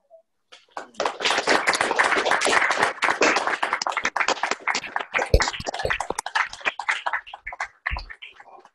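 People clapping in applause, starting about half a second in, strongest in the first few seconds, then thinning out to a few scattered claps and dying away near the end.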